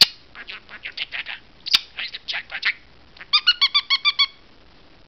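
Pet parakeet chattering in quick, high chirps, with two sharp clicks, then a rapid run of about ten repeated pitched notes near the end.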